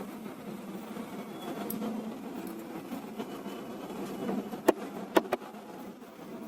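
A steady low buzzing hum, with three sharp clicks close together about five seconds in as the plastic parts of a partly dismantled HP LaserJet M1005 printer are handled.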